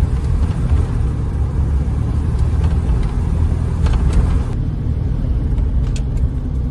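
Camper van driving along, its engine and tyres making a steady low rumble.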